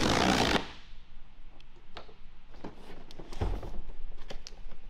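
Packing tape on a cardboard box being slit and torn open with a short ripping sound, followed by scattered light taps and clicks and one dull thump as the box is handled.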